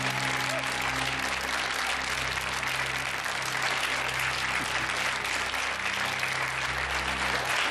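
Studio audience applauding a correct answer, with low sustained music underneath.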